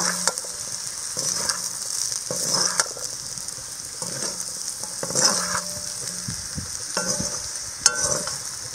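Masala-coated potato fingers sizzling in a pan while a spatula stirs and scrapes them: a steady high sizzle with scraping strokes every second or two, one sharper scrape near the end. The potatoes are being roasted in their spice masala.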